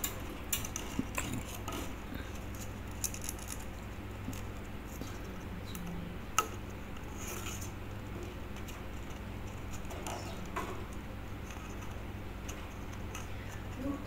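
A Quaker parrot pecking and nibbling at a paper tube on its wire cage: scattered small clicks and taps, one louder about six seconds in, over a low steady hum.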